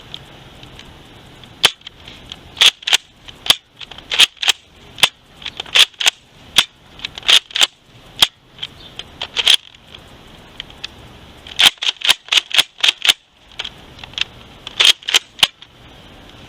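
Nerf Modulus Tri-Strike spring blaster being pumped and fired over and over: a run of sharp plastic clacks and pops, some in quick slam-fire runs and some spaced out, with a pause of about two seconds partway through.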